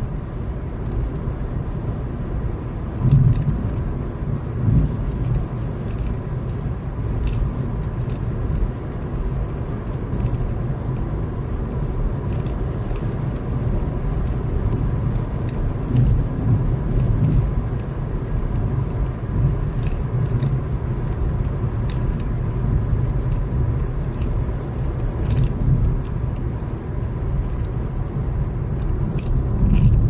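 Road noise inside a moving car's cabin: a steady rumble of engine and tyres at cruising speed, with small rattles and ticks scattered throughout.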